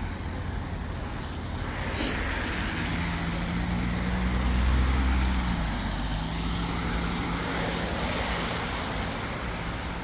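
Cars passing on a wet road: a tyre hiss that swells as each one goes by, over a low engine hum, loudest about five seconds in. A single sharp click comes at about two seconds.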